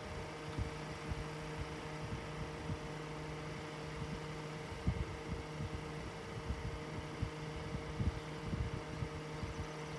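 A steady low hum with soft, irregular low thumps scattered through it.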